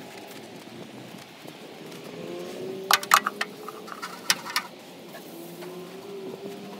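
Long-handled scrub brush scrubbing a soapy ambulance wheel, with a cluster of sharp knocks in the middle as the brush head hits the wheel rim and hubcap. A low hum that slowly rises and falls in pitch runs underneath.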